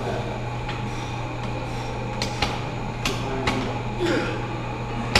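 Several short, sharp metallic clanks of dumbbells and weight plates over a steady low hum.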